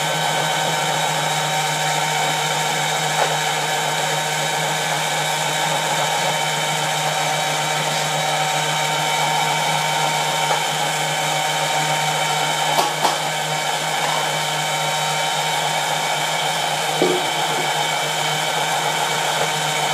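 Electric tomato strainer's motor running steadily with a constant hum and whine while it presses tomatoes through its screen. A few brief knocks sound over it about 3, 13 and 17 seconds in.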